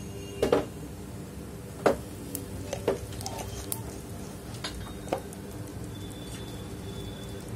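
Oil sizzling gently in a cooking pot, with four or five sharp clinks of kitchen utensils over a steady low hum.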